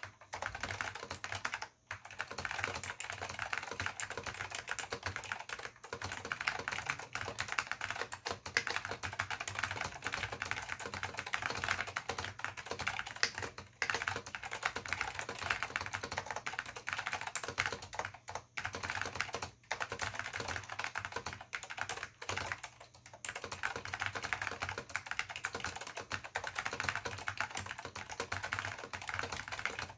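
Fast, steady typing on a 1989 Apple Extended Keyboard II with Alps SKCM Salmon switches and Apple Alps keycaps: a dense run of key clacks, broken by brief pauses a few times.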